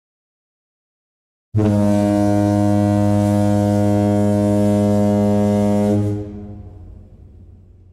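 A single long, deep horn blast starts about a second and a half in, holds steady on one low pitch, then dies away over the last two seconds.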